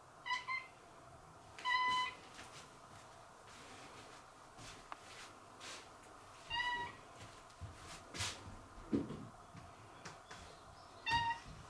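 A house cat giving four short meows of steady pitch, spread out with long gaps between them, and a few soft knocks in between.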